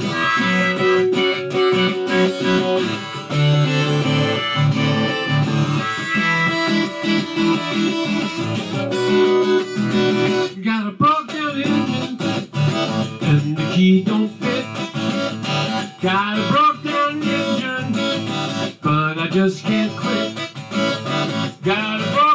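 Acoustic guitar strummed in an instrumental break, with harmonica from a neck rack playing over roughly the first half.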